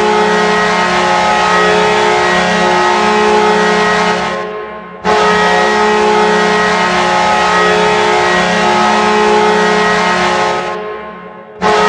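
Hockey goal horn sounding in long blasts of about five seconds each: a loud, steady, multi-note chord that tails off and then starts again, twice.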